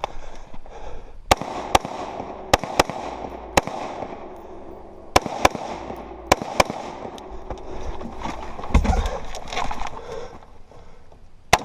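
Rifle shots fired at close range: about ten shots in the first seven seconds, mostly as quick pairs a fraction of a second apart, then a few seconds of gear rattle and movement, then one more shot near the end.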